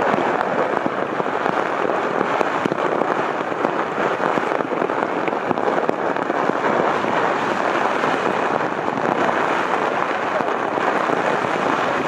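Hailstones pelting down in a strong storm wind, a dense, steady crackle of countless small impacts.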